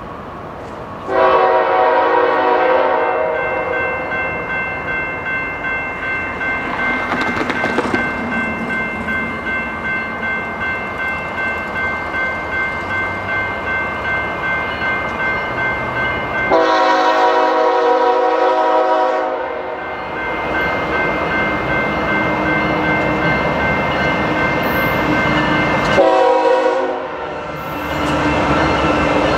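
GE diesel freight locomotive's air horn sounding a grade-crossing signal: a long blast about a second in, another long one midway, then a short and a long one near the end. Between the blasts, crossing bells ring steadily over the rumble of the approaching train.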